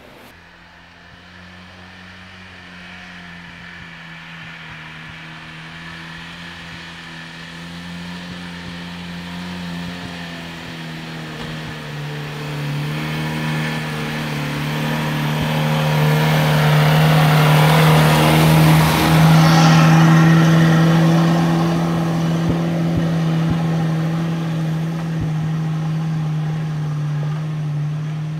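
Off-road 4x4 SUV engine pulling uphill on a dirt track: a steady engine note grows louder as it approaches, peaks with a rush of noise as it passes close by about two-thirds of the way through, then fades somewhat as it drives away.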